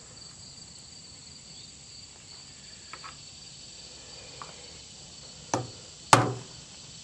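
A small hammer taps twice on a punch held against a flintlock rifle's rear sight, two sharp strikes about half a second apart near the end, drifting the sight sideways to correct windage. Two faint light ticks come earlier, and a steady high insect trill runs underneath.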